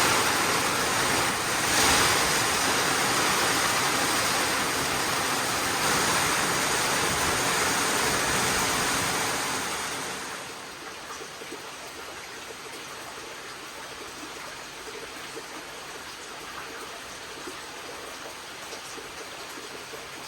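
Steady rain, heavy for about the first ten seconds, then quieter, with light scattered drips.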